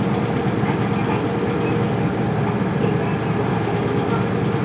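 Isuzu Cubic city bus's 8PE1 V8 diesel engine running steadily, with a constant low drone and no change in pitch.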